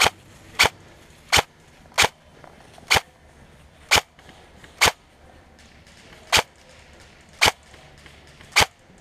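Specna Arms M4 electric airsoft rifle firing single shots, about ten sharp cracks roughly a second apart, slightly uneven in spacing. The gun is low on power, its BBs falling short of the targets.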